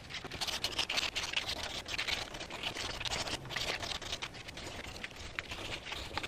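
Hand-sanding of a wooden knife handle clamped in a vise: a run of uneven rasping strokes of abrasive rubbed over the wood.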